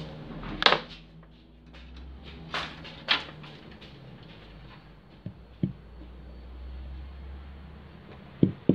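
Hard plastic subwoofer enclosure knocking and clacking as it is lifted and turned over by hand: a few scattered knocks, the loudest two in quick succession near the end, over a low steady hum.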